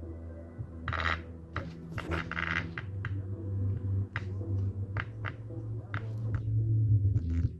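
Fishing reel knocking: sharp uneven clicks, about two a second, over a low steady hum. The knock is an unexplained fault in the reel's mechanism.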